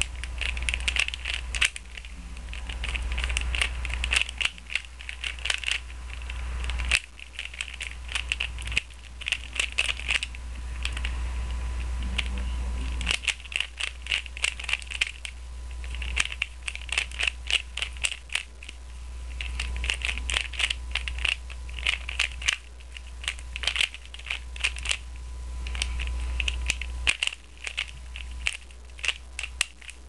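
A Rubik's Cube being turned fast during a speedsolve: quick runs of plastic clicks and clacks as the layers snap round, broken by short pauses between runs.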